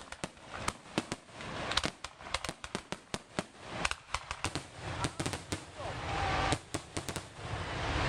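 Fireworks going off: many sharp bangs and crackles in quick, irregular succession, with a low rumble building up about five seconds in.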